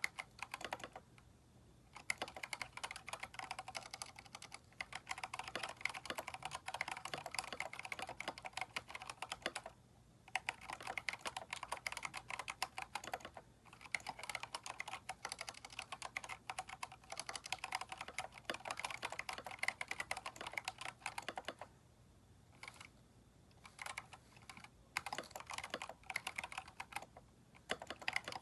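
Keychron K4 mechanical keyboard, fitted with aftermarket keycaps, being typed on in fast runs of keystrokes. The runs break off in short pauses about a second in, around the middle, and several times near the end.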